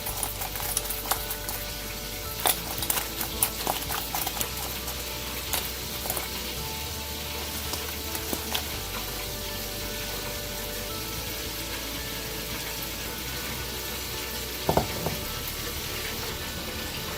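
Crispy deep-fried chicken wings being tossed in barbecue honey sauce in a mixing bowl: a run of clicks and knocks in the first several seconds, a couple more knocks near the end, over a steady hiss.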